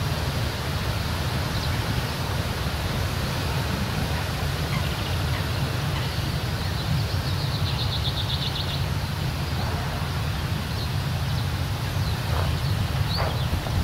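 Narrow-gauge peat-railway diesel locomotive hauling skip wagons away across the moor, a steady low engine rumble mixed with wind on the microphone. A bird trills about seven seconds in and chirps near the end.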